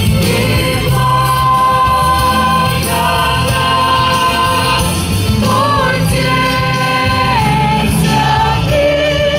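A choir of young women singing, holding long notes.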